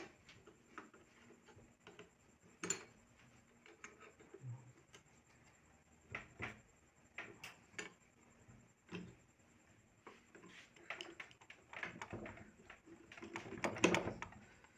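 Scattered light metallic clicks and clinks of a wrench and small steel parts as the presser-foot lifter handle on a sewing machine head is unscrewed and taken off; the clicking grows busier near the end.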